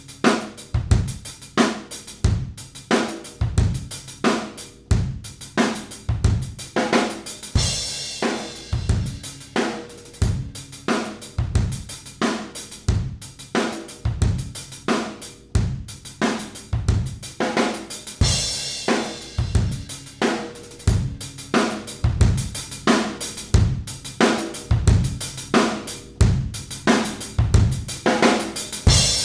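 A looped acoustic drum-kit beat (kick, snare, hi-hat and cymbals), recorded in mono with a single Neumann U87 microphone and played through an Overstayer stereo FET compressor that squashes it hard. The beat keeps a steady rhythm, with a cymbal wash about a quarter of the way in, again past halfway, and at the very end.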